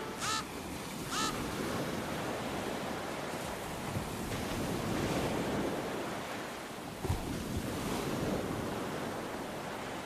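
Sea waves washing and breaking, with wind noise on the microphone and the surf swelling twice. Two short, falling high chirps about a second apart come near the start, and a brief low thump comes about seven seconds in.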